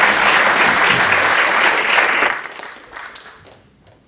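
Audience applauding, a dense clapping that fades out about two and a half to three and a half seconds in.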